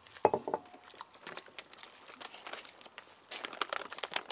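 A hand squeezing and kneading chunks of bamboo shoot in a thick wheat-flour batter in a bowl: scattered wet squishing and crackling, busiest near the end. A short, louder sound comes just after the start.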